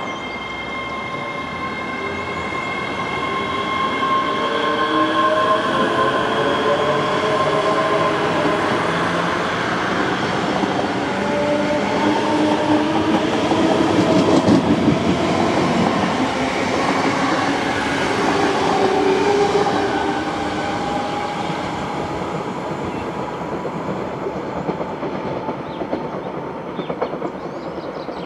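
ScotRail Class 385 electric multiple unit passing, its traction motors whining with tones that glide down and then up in pitch over the noise of the wheels on the rails. It is loudest about halfway through and fades as the train draws away.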